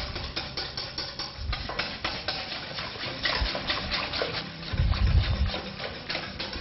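Wire whisk beating a cream-cheese batter in a stainless steel mixing bowl, the wires clicking against the metal several times a second.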